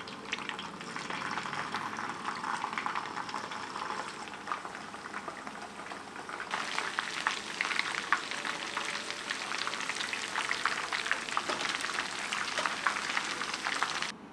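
Spice-coated chicken pieces deep-frying in hot oil in a wok until crisp and golden brown: a steady crackling sizzle full of small pops. It gets louder and busier about six and a half seconds in, then cuts off suddenly just before the end.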